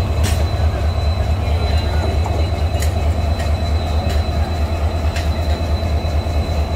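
Passenger train running: a steady low rumble with a few sharp clicks scattered through it.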